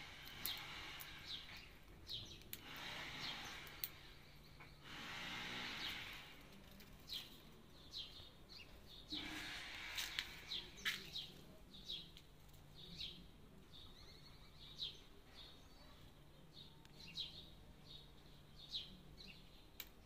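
Cockatiel cracking sunflower seeds in its beak: scattered sharp cracks and short high chirps, over several passing rushes of background noise and a low steady hum.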